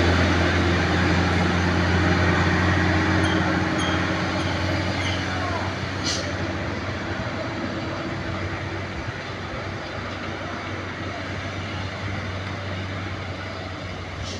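Diesel engine of a heavy truck-and-trailer loaded with sugarcane running as it drives through a hairpin bend, a steady low drone with road noise that slowly fades as the truck moves away. There is a single sharp click about six seconds in.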